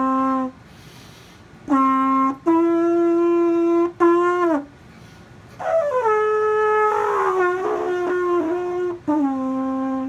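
Lip-buzzed notes blown through a length of plastic dishwasher drain hose played like a brass instrument: a run of held, horn-like notes on a few pitches that step up and back down. Near the middle one higher note slides down and goes ragged before it settles. At this length the player finds the hose "not harmonically good".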